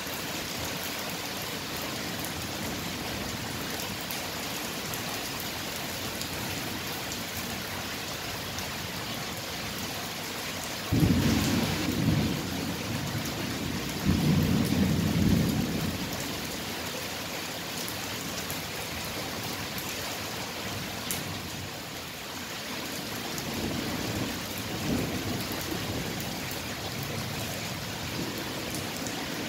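Thunderstorm: steady rain with rolling thunder. A sudden thunderclap comes about eleven seconds in, a second loud rumble follows a few seconds later, and fainter rumbles come later on.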